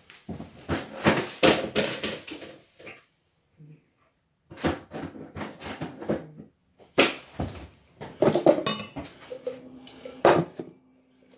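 Kitchen clatter: scattered knocks and clicks of handled utensils and a cupboard, with short pauses. Near the end an opened tin of soup is shaken and knocked against the rim of a steel saucepan as the soup is tipped out.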